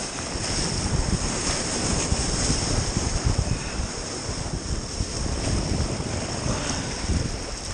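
Wind buffeting the microphone over the rush of ocean surf and moving water: a steady, loud noise with an uneven low rumble.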